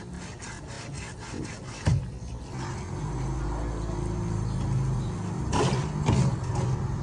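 Rhythmic scraping, about four strokes a second, ending with a sharp knock about two seconds in. Then a low steady motor-like hum, with two short rasping scrapes near the end.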